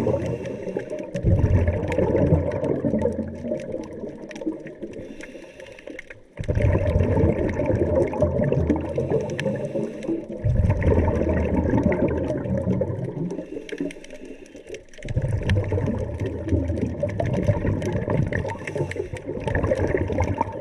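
Scuba diver's exhaled bubbles rushing and gurgling out of the regulator underwater, in loud surges every few seconds that start suddenly, with quieter breaths between.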